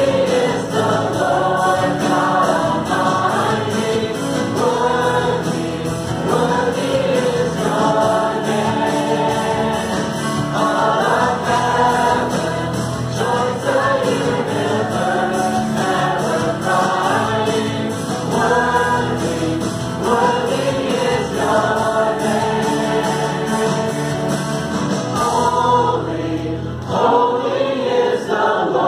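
Live church worship song: a band with acoustic guitar and bass guitar accompanying several singers, with the congregation singing along.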